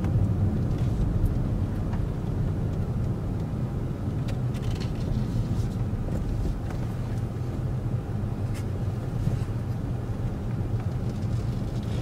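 Steady low engine and road rumble of a car driving slowly, heard from inside the cabin, with a few faint ticks.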